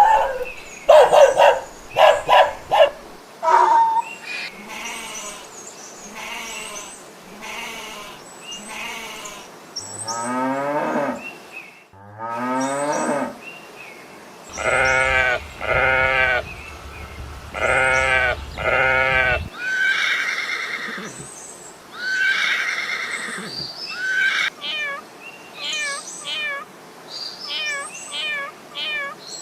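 A series of different farm animal calls one after another, mostly livestock bleating and calling, with a run of short, repeated high calls near the end.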